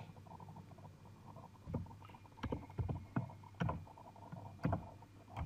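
Computer keyboard being typed on: about nine separate, unhurried keystrokes starting a couple of seconds in, over a faint steady low hum.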